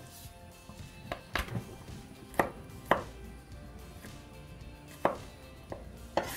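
Kitchen knife chopping garlic cloves on a bamboo cutting board: about seven sharp knocks of the blade striking the board, unevenly spaced.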